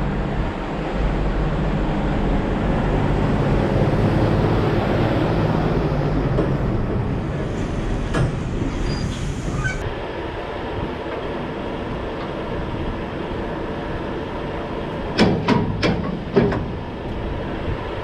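Heavy truck diesel engine running as a Daewoo tractor unit pulls a container trailer. The engine drops away about ten seconds in, and near the end there are about five sharp knocks in quick succession.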